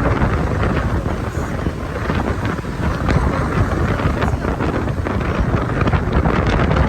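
Strong typhoon wind gusting and buffeting the microphone: a dense, loud rush with a deep rumble and repeated surges.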